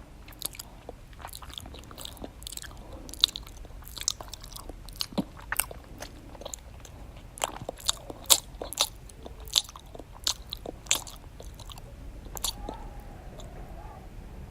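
Close-miked, open-mouthed chewing with wet lip smacks: an irregular run of sharp clicks and smacks, thickest and loudest in the middle, played as a deliberately annoying eating noise.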